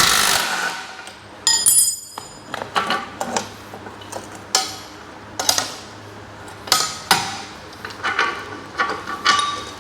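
Galvanized steel rack parts clanking as they are handled: a loud metallic clang right at the start, then a series of lighter clinks and knocks of metal plates and bolts being moved and set down.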